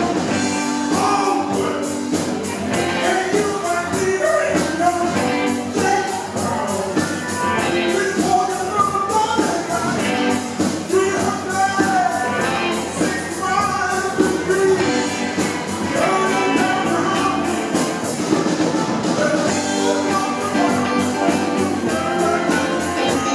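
Live rock band playing a song with electric guitars, bass, drums and keyboard, the drums keeping a steady beat under a melodic lead line.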